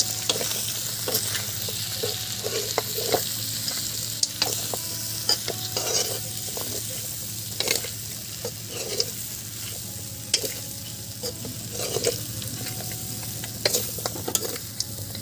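Pork pieces with onion and spices sizzling in a hot kadhai (wok) as a metal spoon stirs them, scraping and clicking against the pan at irregular moments over a steady frying hiss.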